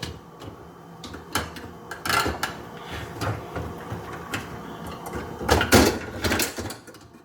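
Plastic dishwasher parts being fitted back into place: scattered clicks, knocks and rattles, loudest a little under six seconds in.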